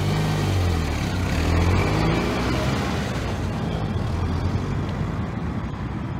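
Car engine running just after a push-button start, a deep rumble that swells about a second and a half in and slowly eases off.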